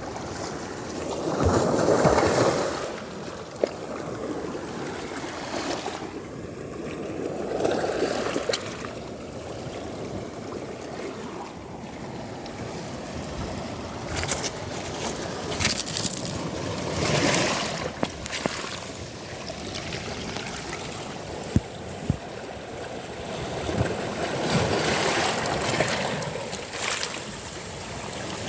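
Sea waves washing up on a beach, the surf swelling and fading about four times, with a few faint clicks in between.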